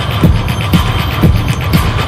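Background dance music with a steady kick drum, about two beats a second, and light hi-hat ticks.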